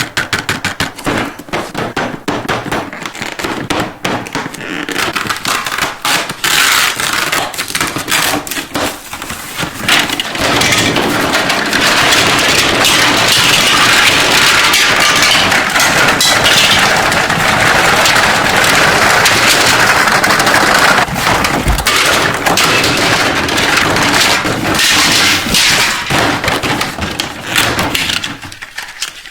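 Toy packaging being handled during an unboxing: a run of sharp clicks and taps, then a long stretch of dense crinkling and crackling that stops just before the end.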